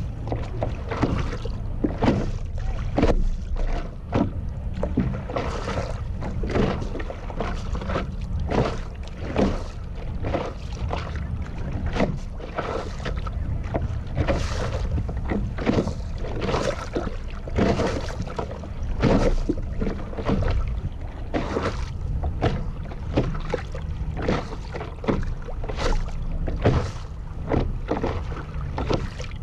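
Water slapping and splashing against the nose of a stand-up paddleboard just in front of a board-mounted action camera, in frequent irregular splashes, over a steady low rumble of wind on the microphone.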